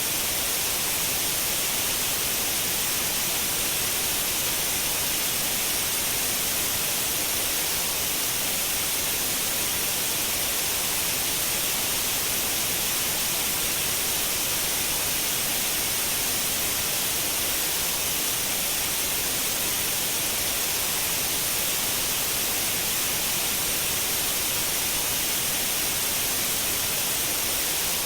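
Continuous white noise: a steady, unchanging hiss, strongest in the high treble.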